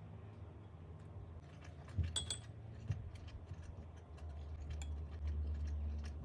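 A metal spoon clinks against a small glass sauce bowl about two seconds in, with a short ring, followed by a few lighter taps. A low rumble rises near the end.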